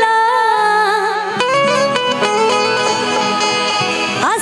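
Live Bhojpuri stage-show music: a melodic lead line over the band.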